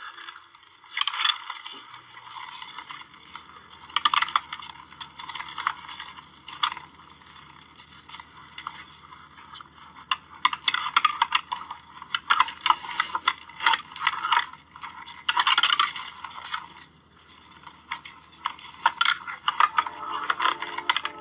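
Deer feeding at a feeder trough, heard through a small speaker: irregular clusters of rapid clicking and scraping as muzzles, feed and antlers knock against the trough. A faint steady low hum runs underneath.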